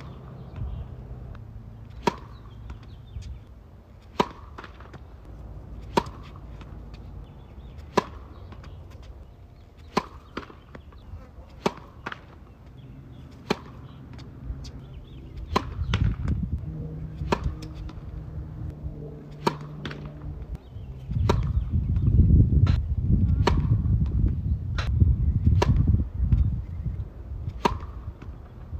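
Tennis serves: a sharp racket-on-ball pop about every two seconds in a steady series. A low rumble swells under them during the second half.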